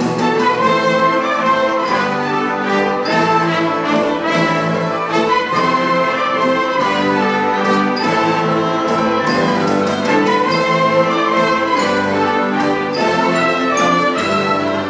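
An orchestra led by bowed violins and cellos plays a Celtic-style overture, its notes changing continuously at a steady, full level.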